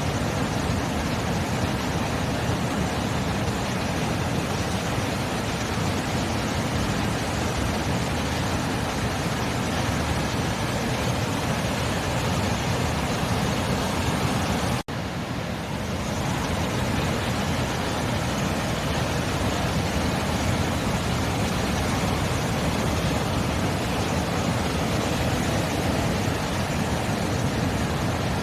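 Steady roar of sea surf, with a brief dropout about halfway through.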